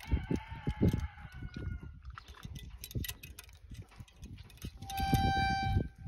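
A calf puller's ratchet and chains clanking and knocking as a calf is pulled from a cow. A drawn-out high-pitched call sounds at the start, and another steady one near the end.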